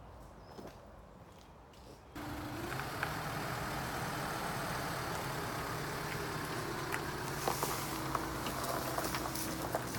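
Nissan NV400 dropside truck's diesel engine running, coming in suddenly about two seconds in and then holding steady.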